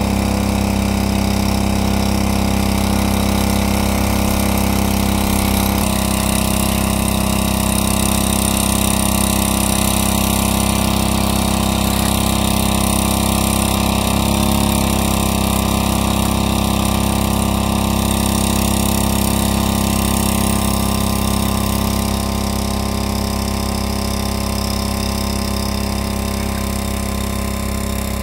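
Small engine-driven water pump running steadily at one constant speed as it drains the pond.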